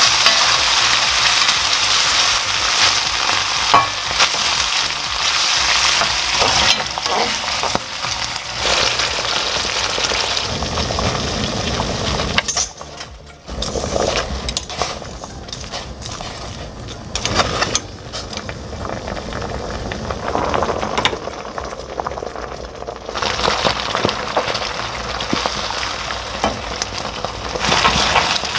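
Tomato sauce with bacon, onion and garlic sizzling in a stainless-steel frying pan as a spatula stirs it. After a cut a little before halfway, spaghetti boils in a large pot of salted water. For the last five seconds or so the spaghetti sizzles as it is stirred quickly through the sauce over high heat.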